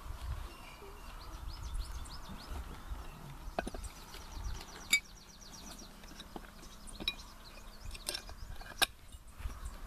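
Small birds chirping in quick short notes, with a few sharp clicks or knocks, the loudest about five seconds in and near the end.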